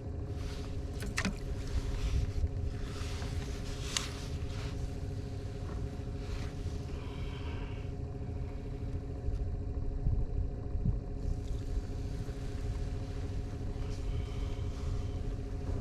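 Boat motor running steadily at trolling speed, a constant low drone with a steady hum, with a few sharp clicks about one and four seconds in.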